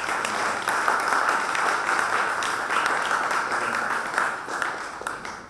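Audience applauding, many hands clapping together; the applause dies down near the end.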